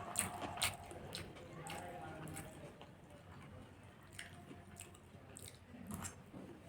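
A person chewing food close to the microphone, with scattered wet mouth clicks and smacks, several in the first second and a few more later on.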